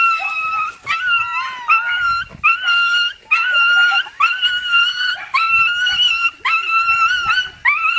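Dog whining in a run of high, drawn-out cries, about one a second, each holding a mostly steady pitch.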